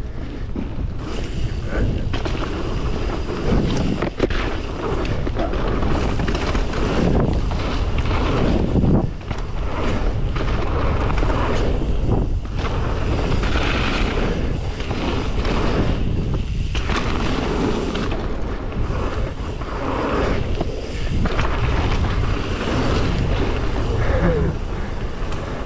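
Wind rushing and buffeting over an action camera's microphone on a mountain bike riding fast down a dirt trail, with tyres crunching over the dirt and frequent knocks and rattles as the bike hits bumps.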